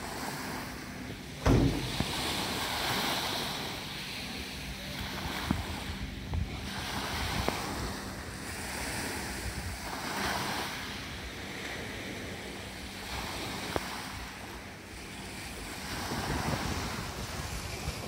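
Black Sea surf washing on the shore, swelling and ebbing every few seconds, with wind blowing on the microphone. A single loud thump about a second and a half in.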